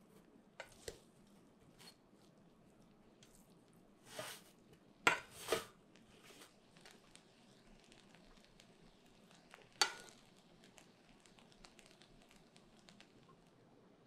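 A plastic rice paddle stirring and scraping cooked rice in a rice cooker's inner pot: a few brief scrapes against the pot, the loudest a pair about five seconds in and one near ten seconds, with faint mixing sounds between.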